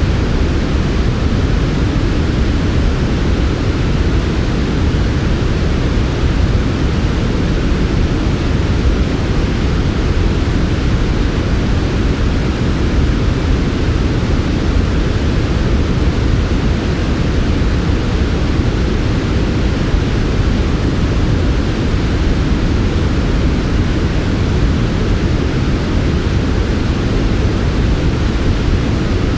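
Steady, unchanging synthetic noise of the kind played as white noise for sleep, weighted toward a deep low rumble with a softer hiss above it.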